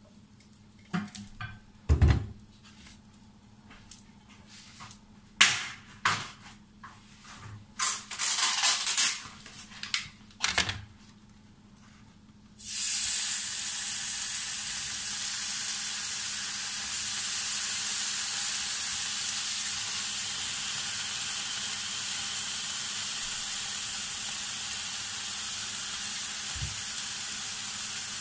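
Knocks and clatter of a frying pan and utensils being handled, then, about twelve seconds in, pork slices are laid in the hot oiled pan and start sizzling, a steady hiss that holds on.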